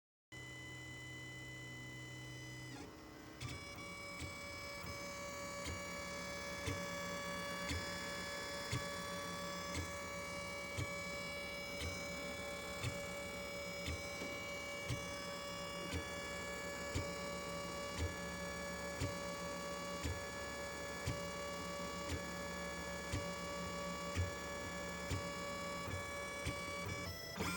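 Lulzbot Mini 3D printer running a print in flexible filament: its stepper motors whine steadily while the print head moves. The tone changes about three seconds in, and from then on a short sharp peak recurs about once a second.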